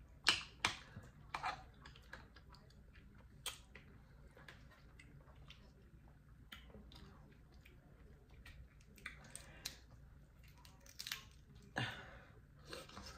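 Faint close-up eating sounds: chewing and wet mouth smacks, heard as scattered short clicks, with a few in a row at the start and again near the end.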